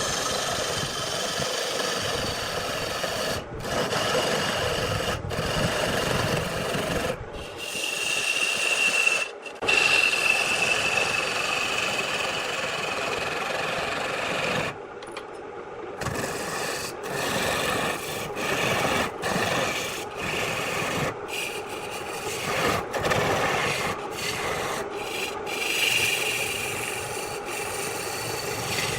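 A turning tool scraping and cutting into wood spinning on a wood lathe, a steady rasping hiss with faint steady tones from the spinning work. It is broken by many brief, abrupt gaps.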